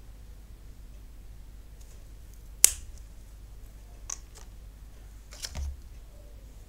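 Handling noise from small objects being worked on a tabletop: one sharp click about two and a half seconds in, then a few fainter clicks and a dull thump near the end.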